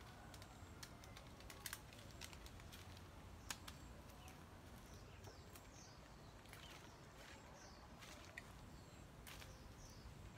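Faint outdoor ambience: a steady low rumble, scattered sharp clicks, and a few short, faint, high bird chirps in the middle and near the end.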